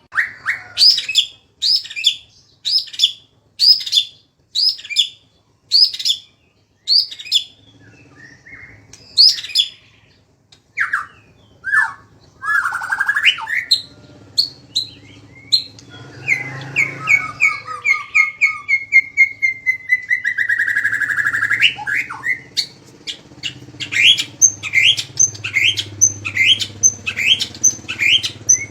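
Songbird singing loudly: a string of sharp whistled notes about one a second, then varied phrases, a long trill that falls in pitch, and near the end quick repeated notes several a second.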